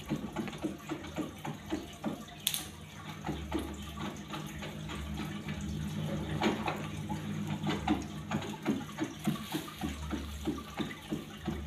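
Running, splashing water over a steady low hum, with a quick run of soft knocks through the second half.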